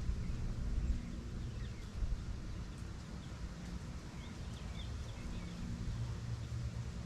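Outdoor ambience: a steady low rumble with a faint engine-like hum, and a few faint bird chirps about two seconds in and again between four and five seconds.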